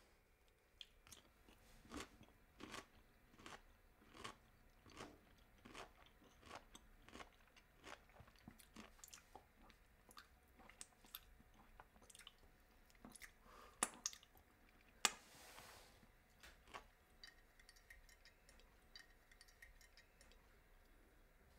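A person drinking in quiet gulps, a soft swallowing click about every 0.7 seconds. Near the middle come two sharper knocks, the second followed by a brief rush of breath-like noise.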